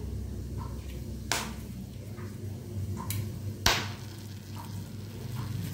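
Whole spices (cinnamon, cloves, star anise) in hot oil in a non-stick kadai, with three sharp crackles, the loudest about two-thirds of the way through, over a low steady hum.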